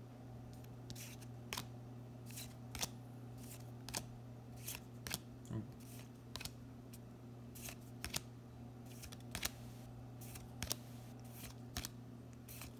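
Trading cards being flicked one at a time from the front of a small stack to the back, each card giving a short crisp snap, about two a second and unevenly spaced, over a steady low hum.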